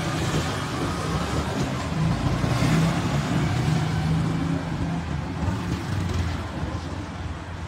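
A vehicle engine running: a steady low hum that swells slightly a few seconds in and eases off toward the end.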